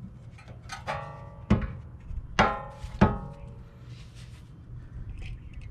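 Metal tools or parts clinking: four sharp strikes in under three seconds, each ringing briefly with a clear pitch, the third and fourth the loudest.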